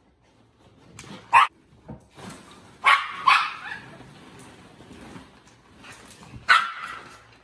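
Yorkshire terriers barking in short, sharp barks, mostly in quick pairs about a second and a half and three seconds in, with one more near the end.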